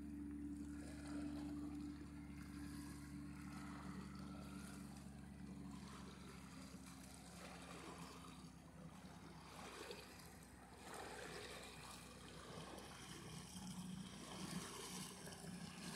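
Distant motorboat engine, a faint steady hum across the lake that fades after about six seconds, with a soft wash of water behind it.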